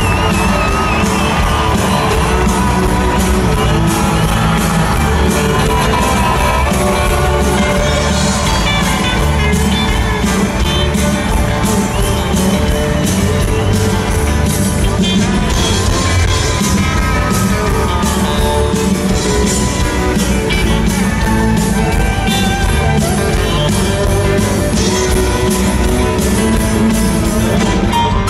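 Live country band playing the closing instrumental vamp of a song loudly through an arena sound system, heard from the audience: electric and acoustic guitars, drum kit and piano over a steady beat.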